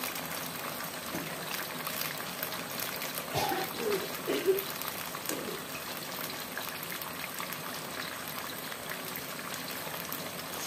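Thin chilli-tomato sauce simmering in a steel wok, a steady fine bubbling and ticking. Near the start, sweet soy sauce trickles in from a bottle.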